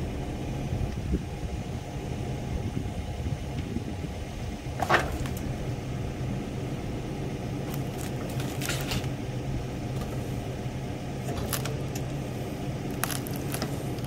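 Engine idling steadily, with scattered metal clinks and one sharp, ringing clank about five seconds in as the quick coupler's pin and latch are worked on.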